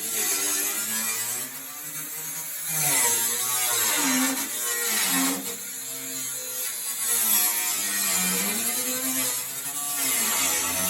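Straight die grinder with a cutoff wheel cutting sheet metal. It is a continuous whine over a steady hiss, and the pitch dips and climbs back several times as the wheel bites into the metal and frees up.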